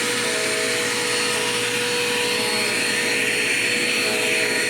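Dirt Devil Quick Power vacuum cleaner running steadily, a continuous motor whine over rushing air, the air note shifting slightly about three seconds in.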